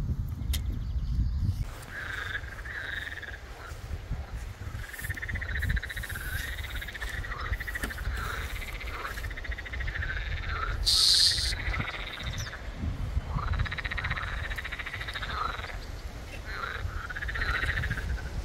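Frogs calling, one rising-and-falling call after another with hardly a break from about two seconds in, over a low rumble; a brief hiss about eleven seconds in.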